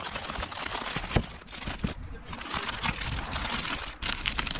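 Packaging rustling and crinkling as a new car grille is unboxed and unwrapped, with scattered light clicks and one sharp knock about a second in.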